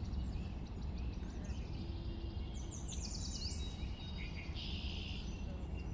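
Birds chirping, with a quick run of short falling chirps around the middle, over a steady low background rumble.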